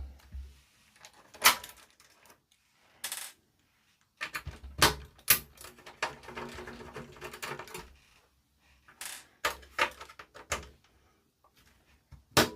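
Irregular sharp clicks and knocks of metal parts and tools being handled on the amplifier's casing, about a dozen separate hits with short rattling stretches between them.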